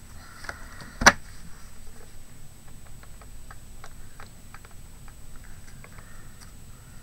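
Small craft pieces being handled and set down on a tabletop: one sharp knock about a second in, then light, irregular clicks and taps.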